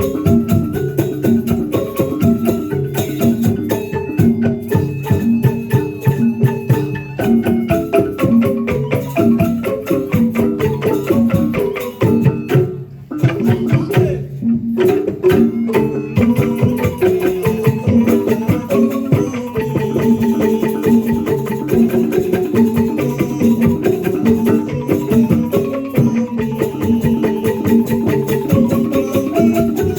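Ensemble music on struck tuned percussion, xylophone- or metallophone-like notes played in fast, dense repeating patterns over hand percussion. The music thins out briefly about halfway through, then continues.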